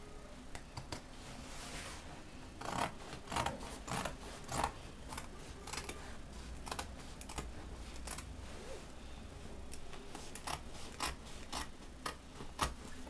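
Scissors cutting through fabric: a run of short, sharp snips at an irregular pace.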